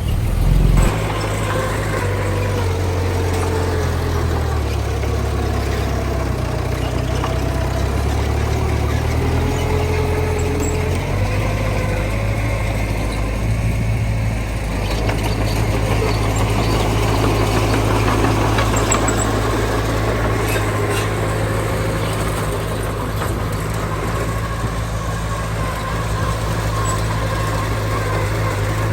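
Heavy diesel engines of earthmoving machinery running. There is a short loud burst right at the start. The engine note shifts up and down for about the first ten seconds, then holds steadier.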